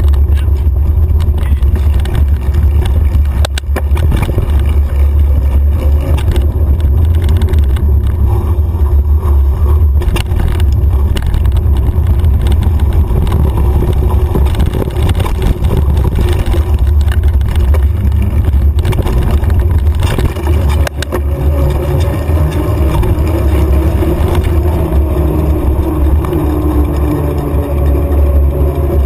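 Mountain bike riding fast over a dirt trail, heard through a bike-mounted camera: a loud, steady low rumble of wind on the microphone and trail vibration, with knocks from bumps in the ground. From about two-thirds of the way in, a humming tone joins as the knobby tyres roll onto pavement.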